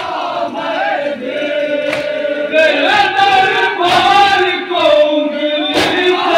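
Group of men chanting a noha, a Shia mourning lament, in unison, a lead voice carried by the others; it grows louder about halfway through.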